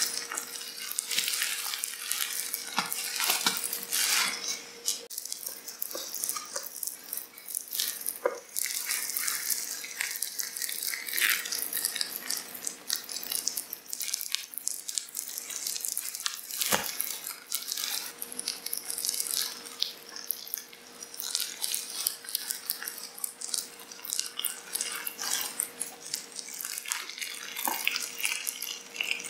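Wet, fleshy squelching and crackling: irregular small clicks and squishes, with one sharper click about two-thirds of the way through, over a faint steady hum.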